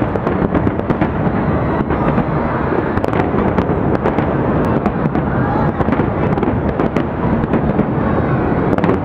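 Large aerial fireworks display: many shells bursting at once in a continuous dense crackle, with sharp bangs throughout.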